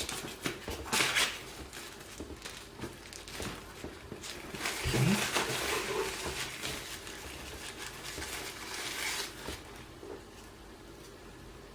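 Packaging being handled, with scattered light clicks and taps and a longer crinkly rustle from about four to nine seconds in, as the RAM modules are taken out of their box.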